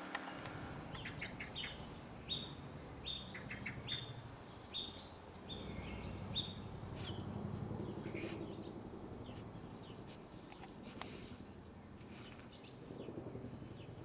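Small songbirds chirping and singing: a run of evenly repeated, falling chirps in the first few seconds, then scattered calls, over a low rumble.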